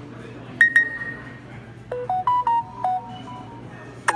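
Samsung Galaxy S21 Ultra notification tones playing from the phone: a quick double ping about half a second in, then a short melody of about six notes that steps up and back down about two seconds in. Another tone begins right at the end.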